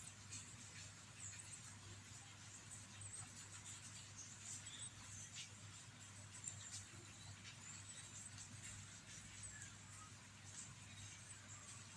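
Near silence: a steady low hum with faint, scattered high-pitched chirps and a few soft ticks.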